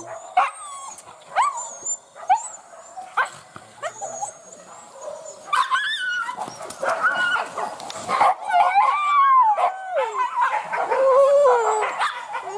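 Several leashed boar-hunting dogs yelping and whining: short, sharp yelps a second or so apart at first, then from about halfway a continuous chorus of overlapping high whines and howls.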